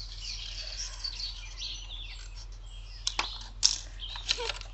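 Birds chirping in the background. About three seconds in come several sharp clicks and paper rustles as the scissors and the cut paper are handled; the loudest click is a little later.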